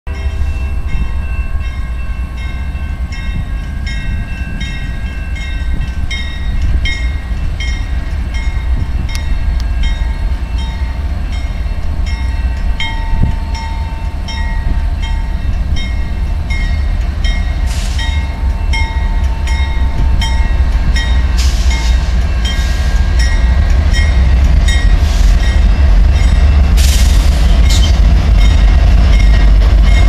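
Diesel locomotives of an approaching freight train, their engines rumbling louder as they near. A bell rings steadily over the rumble, and the horn sounds in the middle stretch.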